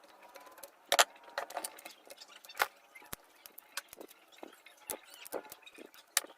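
Irregular sharp clicks and light rattles of a drilling machine being handled, the sharpest about a second in and again past two and a half seconds; no motor runs, as the drill won't start.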